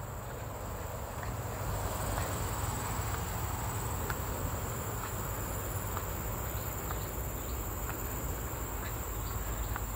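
A steady, high-pitched chorus of insects shrilling in the roadside vegetation, over a constant low rumble and a few faint light ticks.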